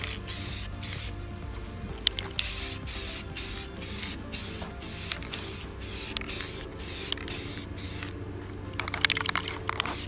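Aerosol can of Rust-Oleum gloss protective enamel hissing in repeated short bursts as red paint is sprayed onto a plastic motorcycle fairing, over background music.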